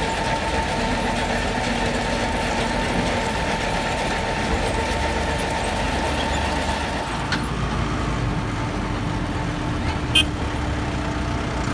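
Diesel tractor engines running steadily, with a thin steady whine through the first half and a brief click about ten seconds in.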